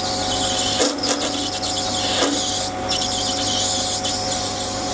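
Sieg C3 mini lathe running with a steady motor hum and whine while a tangential (diamond) high-speed steel tool turns plastic stock, a hiss of cutting over the top. The cut is clean, with no rubbing from the cutting edges.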